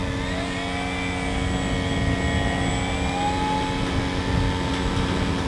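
Electric motor and propeller of a Dynam Beaver RC floatplane taxiing on the water, a thin whine that rises and falls slowly in pitch as the throttle changes. A steady low hum runs underneath.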